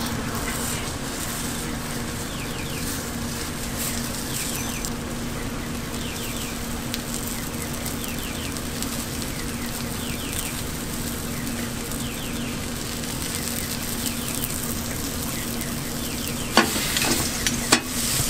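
Bungeoppang (fish-shaped bread) batter sizzling in hot metal molds over a steady low hum. A few sharp clacks come near the end.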